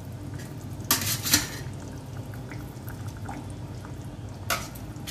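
Pieces of fried fish put with a spatula into fish curry simmering in a kadai. Short splashy bursts come about a second in (two close together) and again near the end, over the faint bubbling of the curry.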